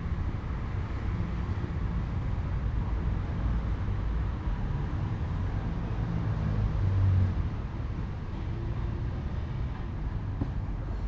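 Steady low rumble of background road traffic, swelling briefly about seven seconds in, with a faint click near the end.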